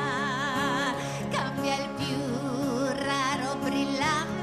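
A woman singing live, holding notes with a wide vibrato, over acoustic guitar accompaniment.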